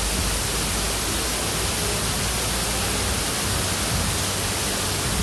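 Steady rushing hiss of water from a small garden waterfall and misting nozzles spraying fog.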